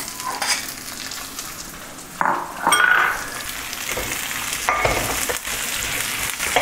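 Chopped onions sizzling in hot coconut oil in a wide metal pan, with a metal spatula starting to stir and scrape through them about two seconds in, loudest around three seconds.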